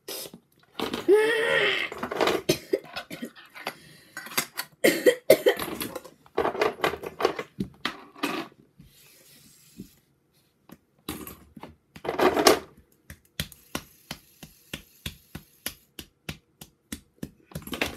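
Fidget spinners being picked up, handled and set down: a string of sharp plastic and metal clicks and clatters, with quick runs of ticks near the end.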